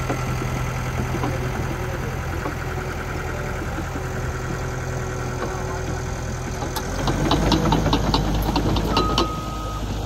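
Cat crawler dozer's diesel engine running steadily; about seven seconds in it gets louder and the steel tracks set up a quick rattling clank as the machine moves off.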